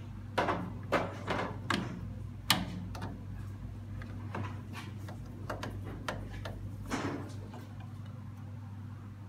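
Magnetic screwdriver and a small screw clicking and scraping against the printer's sheet-metal frame as the screw is worked into a hard-to-reach hole. There are several sharp clicks in the first three seconds, then scattered fainter ticks.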